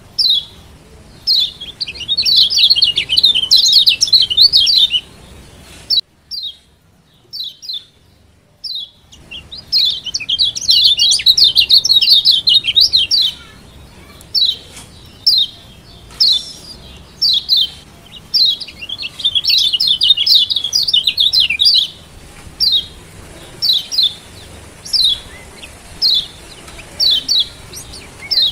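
Lombok yellow white-eye (kecial kuning) giving sharp, high 'ciak' calls, singly and in quick groups. These break three times into dense runs of fast twittering two to four seconds long. The calls stop for about three seconds, starting some six seconds in.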